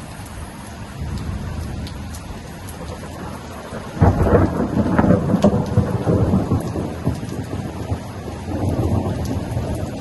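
Thunderstorm: steady rain with rolling thunder, and a loud thunderclap about four seconds in that rumbles on afterwards.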